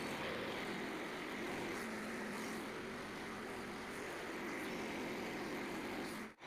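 Frontier portable bandsaw sawmill running steadily, a constant mechanical noise with no distinct strokes or knocks.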